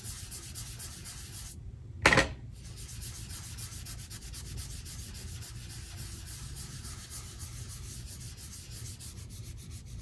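Ink-loaded blending brush scrubbed over cardstock in a steady brushing rasp. It pauses briefly, and a single short knock comes about two seconds in, the loudest sound here.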